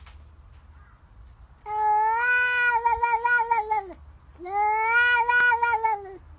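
A domestic cat giving two long, drawn-out 'wha' meows, each about two seconds long, wavering in the middle and dropping in pitch at the end.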